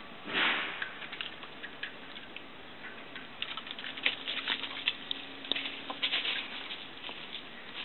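Chickens scratching and pecking on gravel and dry leaves: a steady scatter of light clicks and rustles that gets busier in the second half, with one louder rustle about half a second in.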